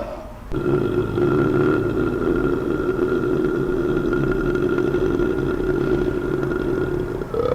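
A person belching one long, loud, rough burp that holds a steady pitch for nearly seven seconds, starting about half a second in. Another burp at a higher pitch begins just before the end.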